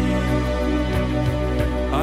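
Background music: slow, sustained new-age style tones over a steady low drone.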